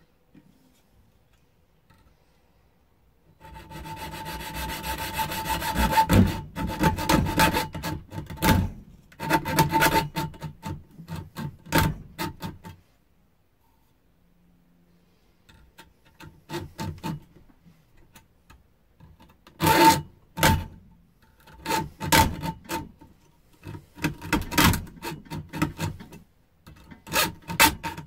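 Junior hacksaw cutting through a metal selfie-stick tube held in a vise, in quick back-and-forth strokes with a ringing tone from the tube. The sawing stops for a few seconds around the middle, then starts again, hesitantly at first.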